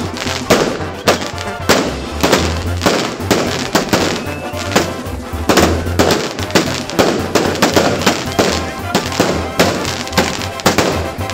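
Fireworks on a pyrotechnic toro (firework bull) going off in rapid, loud bangs, several a second, as rockets and sparks shoot up from it.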